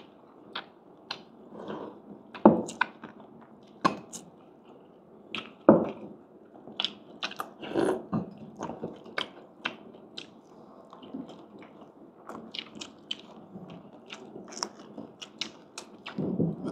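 Biting and chewing crunchy fried pork skin, with irregular crisp crunches and several louder, sharper bites among them.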